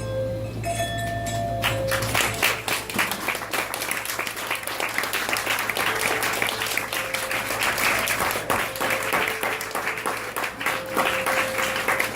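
Closing music of held instrumental notes, then audience applause breaks out about two seconds in and keeps going, with the music still sounding under it.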